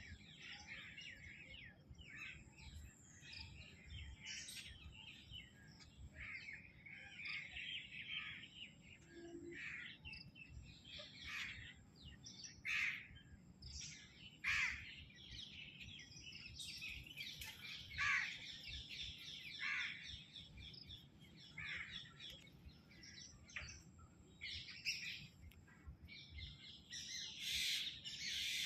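Several wild birds chirping and calling at once: a busy, faint mix of quick sharp chirps and short downward-sweeping notes, with a thin steady high whine underneath.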